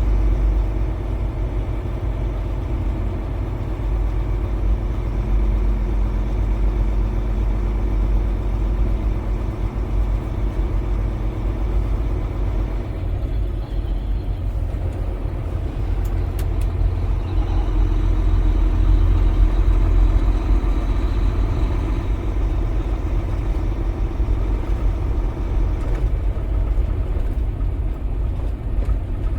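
Semi truck's diesel engine running steadily as the truck moves at low speed, getting a little louder for a few seconds past the middle.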